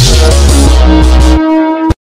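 Electronic music with heavy bass; the bass drops out about one and a half seconds in, and the track cuts off suddenly just before the end.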